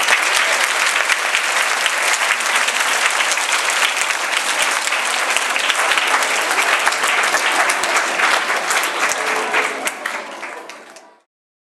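A large crowd of schoolchildren applauding: dense, steady clapping that fades near the end and then cuts off suddenly.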